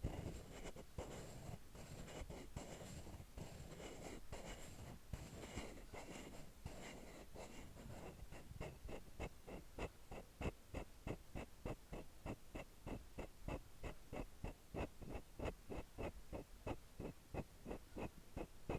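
A tool rubbing and scraping over a small hollow capsule. About eight seconds in this gives way to an even run of sharp clicks, about three a second.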